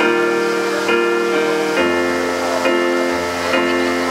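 Music: held chords that change about once a second, with a low bass coming in about two seconds in.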